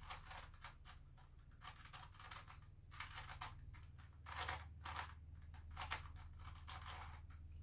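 MF8 Grilles II plastic twisty puzzle being turned by hand: faint clicks and scrapes as its layers are twisted, in short groups of moves with pauses between.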